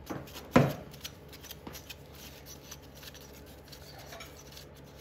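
Gloved hands handling a viscous fan clutch at the water pump pulley of a BMW engine. There is a sharp knock about half a second in, then light clicks and rubbing as the clutch is turned on its threaded hub.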